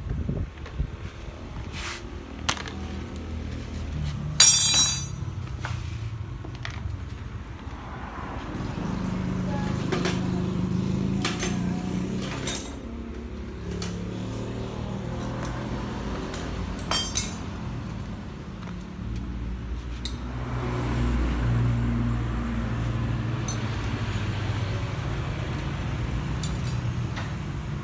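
Scattered metallic clinks and clicks of tools and fasteners as a Honda Vario 125 scooter's body panels are taken apart, the loudest a ringing clink about four and a half seconds in, over a steady low hum.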